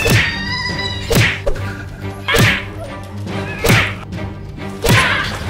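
A run of fight sound effects: five sharp whip-like whacks about every second and a quarter, each with a quick falling swoosh, over a steady low music drone.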